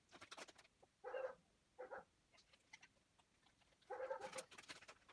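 American pit bull terrier whining in short, high whimpers, a brief one about a second in, another just before two seconds and a longer one about four seconds in, with the crinkle of a plastic treat packet being handled.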